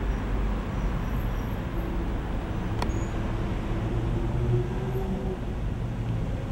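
Street traffic noise with a vehicle engine running at a low, steady hum. A single sharp click comes about three seconds in.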